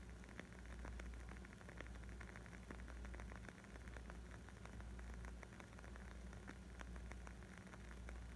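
Wood fire crackling: faint, irregular snaps and pops, several a second, over a low steady rumble.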